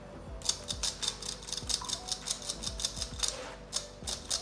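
Metal spoon pressing and scraping wet almond pulp in a fine-mesh metal sieve, in quick, even scraping strokes about four a second. The strokes start about half a second in.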